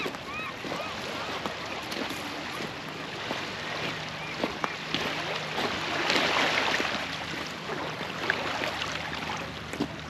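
Small waves lapping and washing over a pebble shore, with light clicking of stones and wind on the microphone; the wash swells about six seconds in.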